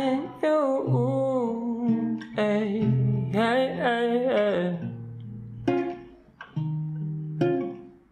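A man singing long, sliding notes over a strummed acoustic guitar. After about five seconds the voice drops out and the guitar carries on alone with a few separate plucked chords.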